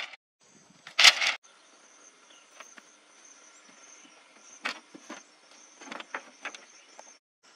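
A loud wooden clatter of split bamboo strips about a second in, then a few light knocks as the strips are handled. Crickets shrill steadily throughout.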